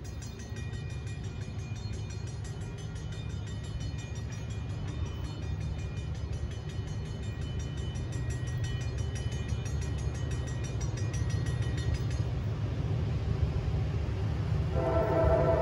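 Approaching CSX diesel freight locomotives: a low engine rumble that grows steadily louder. The locomotive's horn starts sounding near the end.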